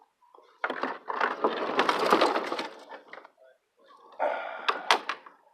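Two bursts of rustling and scraping close to the microphone, the first long and loud, the second shorter with a few sharp knocks near the end.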